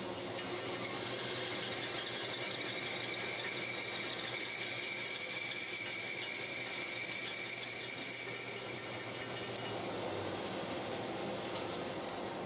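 Band saw running with its blade cutting a thick maple blank, a steady whine over the motor noise. The whine fades about three-quarters through while the saw keeps running.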